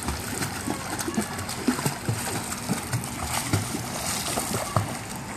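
Pool water splashing irregularly as a child kicks his legs while holding onto a foam float mat.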